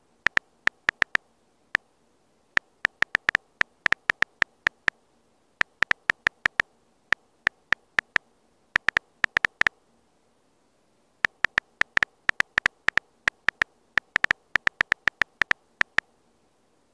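Smartphone on-screen keyboard key-press clicks as a message is typed letter by letter: quick irregular runs of short, identical clicks, one per key, broken by pauses of about a second.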